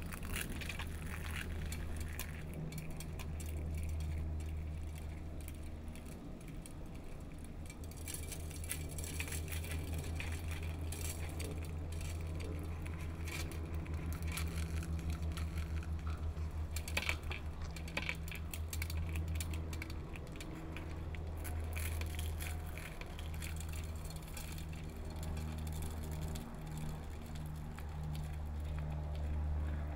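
A steady low drone with a softer, pulsing tone above it, overlaid with scattered light clicks and crackles.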